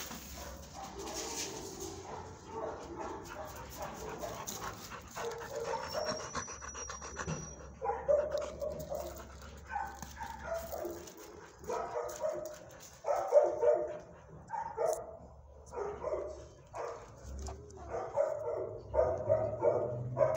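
Dogs panting and barking; from about halfway through, short barks repeat roughly once or twice a second.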